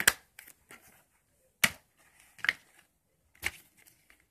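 Plastic DVD and video cases being handled and stacked, knocking together in four sharp clacks about a second apart with lighter clicks between them.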